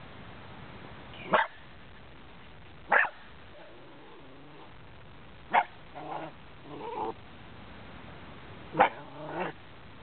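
Young Cairn Terrier barking: four sharp barks spaced a few seconds apart, the last two each followed by softer, shorter yips.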